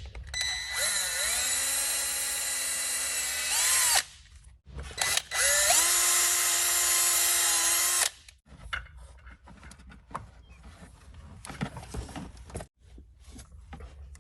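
Power drill running in two bursts of about three seconds each, its pitch rising as it spins up and wavering as the trigger is eased, drilling out the small plastic grommets to enlarge the holes for speaker wire. Afterwards come faint clicks and knocks.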